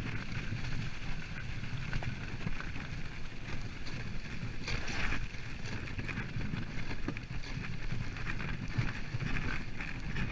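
Dog sled running fast over a packed snow trail: a steady rush and scrape of the runners with an irregular clatter and rattle from the sled, briefly louder about five seconds in.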